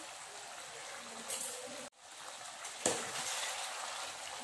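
Chicken curry simmering uncovered in a stainless steel pan, a steady hiss of bubbling sauce as its liquid cooks down. The sound drops out for a moment near two seconds in, and just before three seconds a spatula strikes into the pan as stirring begins.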